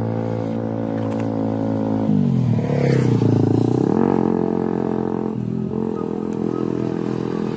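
Motorcycle engine running close by, a steady drone whose pitch drops and dips between about two and four seconds in, then climbs back and holds steady.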